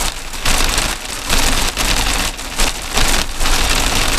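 Heavy rain drumming on the roof of a moving vehicle, heard from inside the cabin. It is so loud, swelling and easing every second or so.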